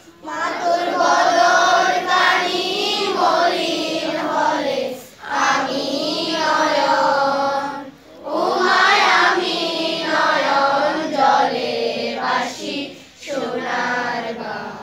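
A large group of school students singing a song together in unison, in long phrases with short breaks between them.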